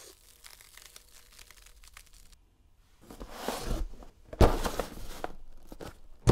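Packaging rustling and tearing, faint at first and louder after about three seconds, with one sharp thump about four and a half seconds in.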